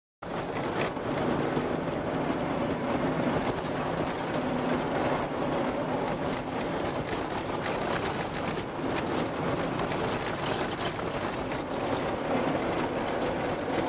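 Vehicle driving over a sandy, corrugated dirt track: a steady drone of engine and tyre noise with frequent small knocks and rattles from the corrugations.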